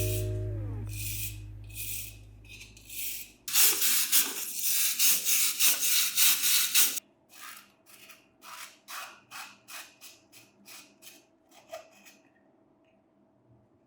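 Back-and-forth hand rubbing strokes, as in abrasive work on a part being restored. The strokes are fast and loud for about three and a half seconds, at roughly three to four a second, then turn softer and slower for several more seconds before stopping.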